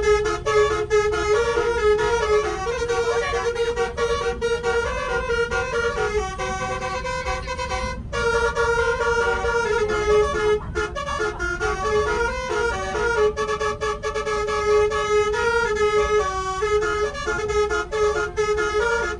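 Bus basuri telolet air horn with 12 roof-mounted trumpets, driven by a DAV melody module, playing a long tune of stepped notes, with a short break about eight seconds in. A low rumble runs underneath.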